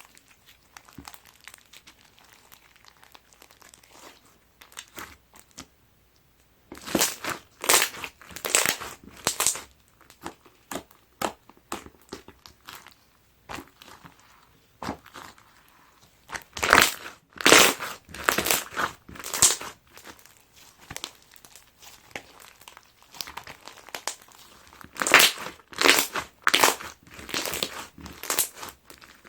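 Clear slime packed with foam beads being squeezed and pressed by hand, giving crunchy, crackling pops. The crackling comes in three louder bouts with quieter squishing between.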